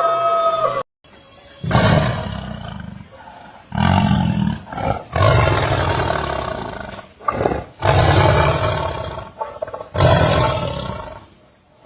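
A large animal roaring: a series of loud, rough roars, each a second or two long, coming every couple of seconds.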